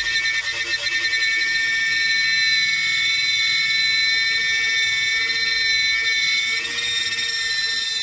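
DEFU 368A key cutting machine running as the cutter mills a key blank, with a steady high-pitched whine from the drive that shifts slightly near the end. The owner puts the noise down to a stretched, slipping belt.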